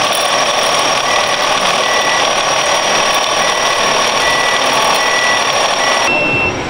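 Reversing beeper sounding a string of short, evenly spaced beeps over a steady high machine whine. The sound changes abruptly about six seconds in.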